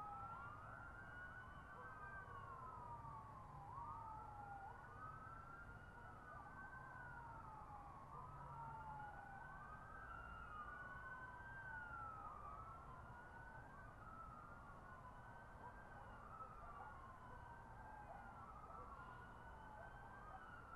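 Faint emergency-vehicle siren wailing in slow, overlapping sweeps, each rising quickly and falling more slowly, over a low, steady rumble.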